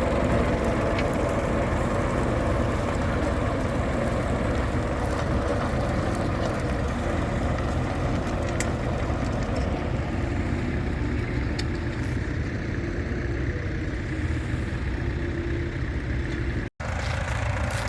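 Vintage tractor engine running steadily at low revs, a deep even hum that lightens in the second half. The sound cuts out completely for an instant near the end.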